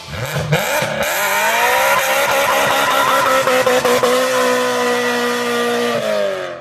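Wide-body BMW's engine revving hard as the car drifts with its rear tyres spinning and smoking. The pitch climbs over the first couple of seconds, holds high with a slight waver, then drops and cuts out at the end.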